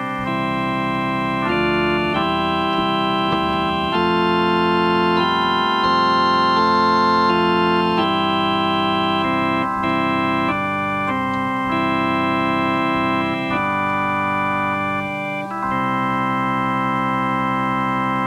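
Electronic keyboard playing slow chords, each held steady without fading and changing every second or two, with a brief drop in level about fifteen seconds in.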